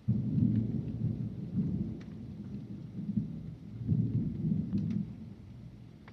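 Thunder: a low rumble that starts suddenly, rolls through several swells, and dies away near the end.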